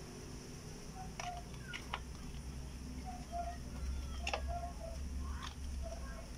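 A few scattered light clicks and taps of plastic wire connectors being handled and fitted during an inverter board swap, over a low steady hum.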